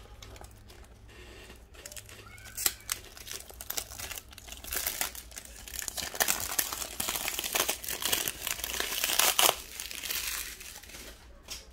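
Plastic shrink wrap crinkling and crackling as it is peeled off a perfume box by hand, sparse at first, then denser and louder from about four seconds in until it dies down near the end.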